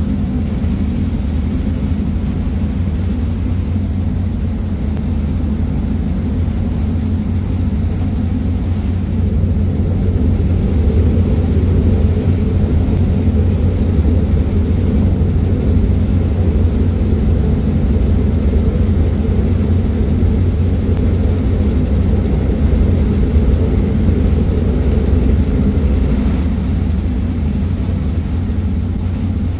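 Passenger ferry under way: a steady low engine rumble mixed with the rush of water from its wake, heard on the open stern deck. It gets a little louder about a third of the way in and eases off near the end.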